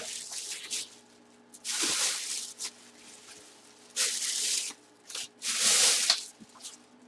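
Packaging being torn and pulled open around a boxed full-size football helmet: three rasping tearing sounds, the first about a second long and the next two shorter.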